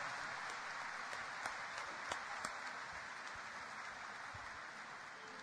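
Audience applause, faint and slowly dying away, with a few separate claps standing out.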